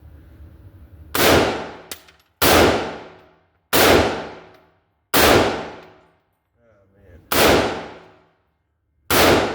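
Six rifle shots in 5.56/.223 fired at a steady pace, about one every second and a half. Each shot cracks sharply and then fades away over about a second.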